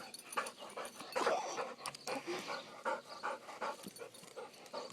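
A dog panting hard and fast, about three breaths a second, out of breath from running after a fetch toy.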